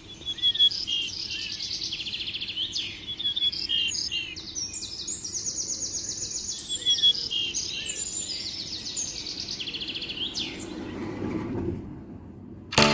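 Bird chirping in quick, high-pitched trilled phrases, over a low steady background hum; the chirping stops about two seconds before the end.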